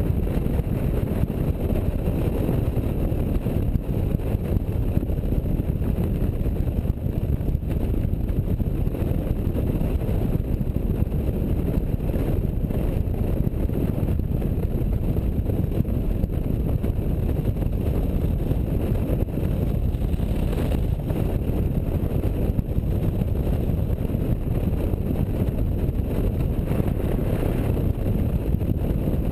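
Touring motorcycle ridden at steady road speed: a steady rush of wind on the bike-mounted microphone with the engine running underneath.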